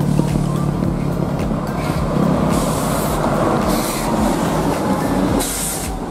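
A large intercity bus passing close, with engine and tyre noise and three short bursts of hiss during the pass.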